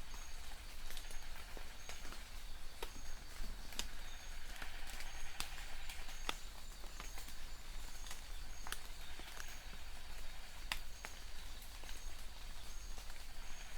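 Rain falling: a steady hiss with scattered sharp drops and drips tapping irregularly. A faint, short, high chirp repeats about once a second.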